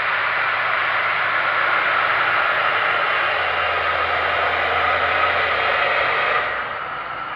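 John Deere 7530 tractor's six-cylinder diesel engine running steadily under load as it pulls a Gaspardo Aliante seed drill past, a loud noisy drone. A low engine hum grows as it nears, and the whole sound drops off suddenly about six and a half seconds in as the tractor goes by.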